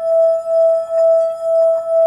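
Singing bowl ringing with one steady, sustained tone and fainter higher overtones, its loudness wavering in a regular pulse about twice a second.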